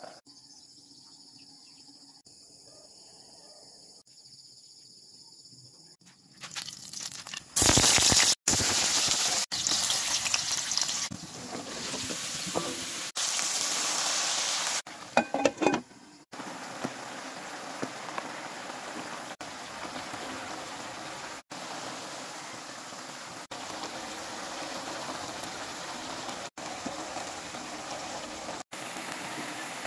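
Vegetables cooking in a hot wok. A loud sizzle breaks out about seven seconds in, liquid is poured in, and then a steady sizzle and simmer runs on. The first few seconds are quieter, with a faint bubbling of a pot of boiling water.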